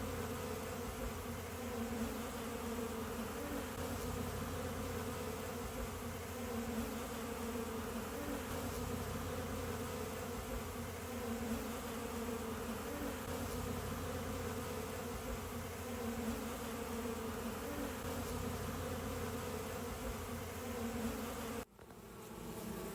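Honeybees buzzing steadily in a dense, continuous hum at a busy hive entrance, heavy foraging traffic of workers flying in loaded with pollen. The hum cuts out abruptly for a moment near the end, then comes back.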